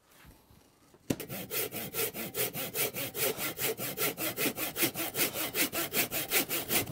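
Handsaw cutting through the real-wood-veneered MDF slats of an acoustic slat wall panel. Quick, even back-and-forth strokes, about six a second, begin about a second in.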